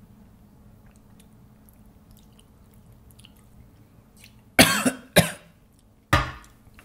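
Quiet, faint sipping and swallowing from a drink can, then a man coughs three times, short and sharp, clearing his throat after drinking.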